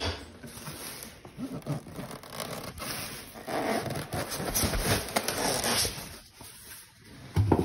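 Thin plastic liner bag rustling and crinkling, with cardboard and styrofoam rubbing, as a lobster shipping box is opened, and a dull bump near the end.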